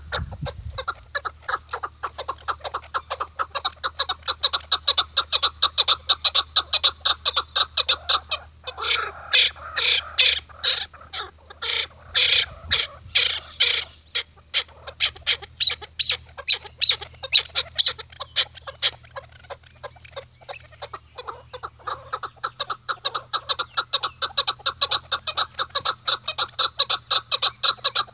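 A chukar partridge calling: a long run of rapid clucking chuk notes, several a second, growing louder and harsher for a few seconds in the middle before settling back into the steady chuk-chuk rhythm.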